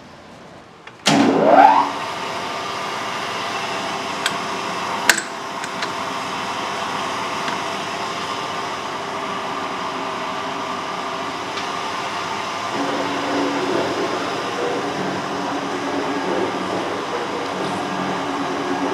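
Metal shaper's electric motor starting about a second in with a rising whine, then running steadily with a steady hum. A sharp click comes about five seconds in, and the sound grows a little fuller from about thirteen seconds.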